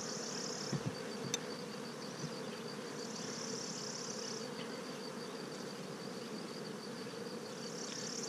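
Steady buzzing hum of honey bees over an open hive, with a couple of light clicks of the metal hive tool about a second in.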